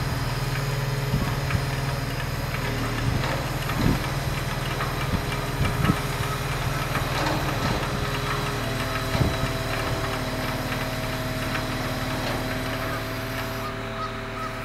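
Terex Demag mobile crane's diesel engine running steadily while it holds a suspended steam locomotive, with a few sharp metallic knocks. A higher steady whine joins a little past halfway.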